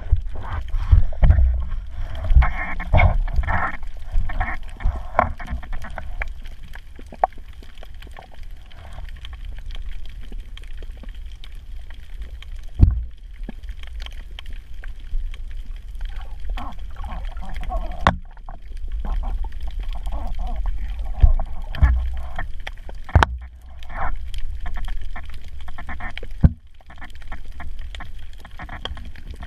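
Muffled underwater sound picked up by a camera in a waterproof housing: a constant low rumble of moving water, with irregular muffled bursts and a few sharp knocks against the housing.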